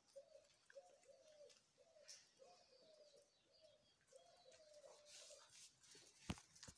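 Dove cooing faintly, a run of short even-pitched coos about two a second that stops about five and a half seconds in. A couple of sharp knocks follow near the end.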